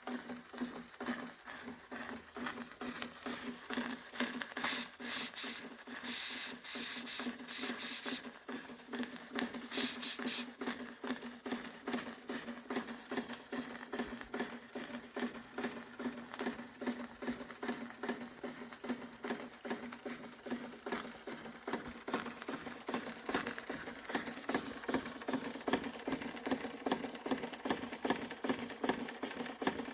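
Märklin 4112 toy steam engine running steadily, its cylinder beating out a fast, even chuff-and-rattle. Sharp hissing of escaping steam breaks in twice, about five and ten seconds in.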